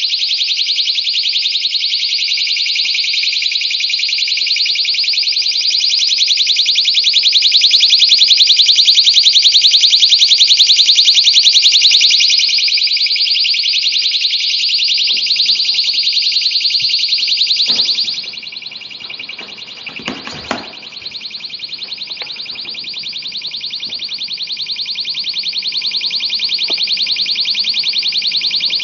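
Personal safety alarm shrieking with a rapid high-pitched warble. About 18 seconds in, it suddenly drops in level with a few knocks and goes on, muffled by the loose-fill insulation it is being moved into.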